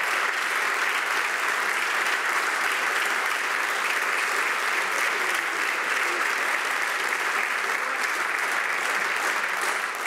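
Sustained applause from members of a parliamentary chamber, a steady wash of many hands clapping that eases slightly near the end.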